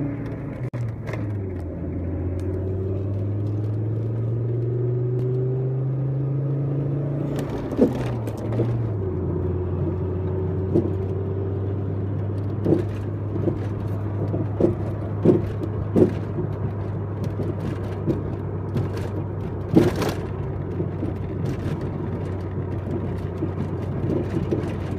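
Volvo 850R's turbocharged five-cylinder engine running, its pitch rising gently and then dropping back about eight seconds in. Over it come short, sharp clunks at irregular intervals, roughly one every second or two, the loudest about twenty seconds in: the car's unexplained clunking noise.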